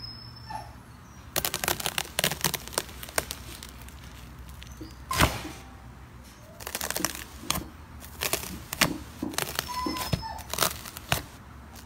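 Gold foil laid over slime crinkling and crackling in quick clusters of sharp pops as a metal grid press is pushed down through it, forcing the slime up through the foil. The loudest single pop comes about five seconds in.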